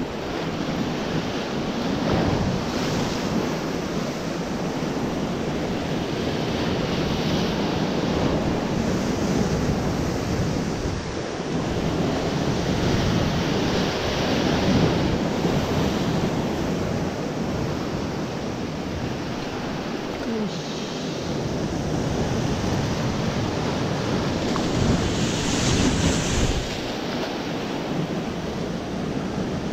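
Sea surf breaking and washing against a rocky shore: a continuous rush that swells and eases every several seconds, with wind buffeting the microphone.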